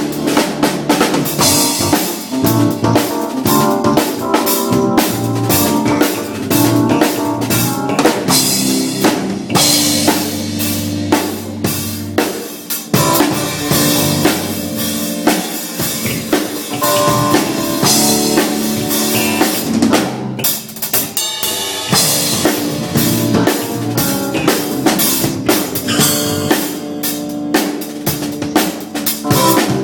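Music led by a drum kit: kick, snare and rimshot strikes in a steady, busy beat over bass and other pitched instruments.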